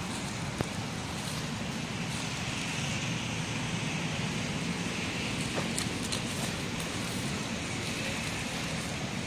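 Steady outdoor background rumble and hiss, with a few faint clicks.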